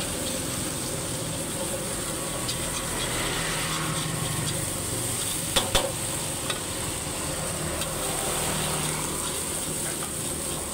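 Eggs frying in butter in a hot wok, sizzling steadily while a metal ladle stirs and scrapes them. Two sharp ladle knocks against the wok come about halfway through.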